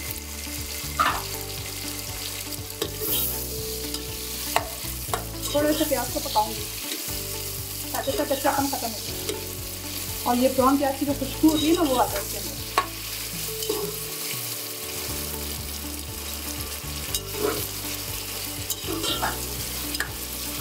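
Sliced onions frying in oil in a metal pot, sizzling steadily, while a metal spoon stirs them with clicks and scrapes against the pot; the scraping is busiest around the middle.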